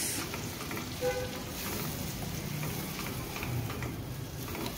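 Tomato purée sizzling in hot oil and spiced yogurt masala in a steel pan while it is stirred with a silicone spatula: a steady frying sizzle.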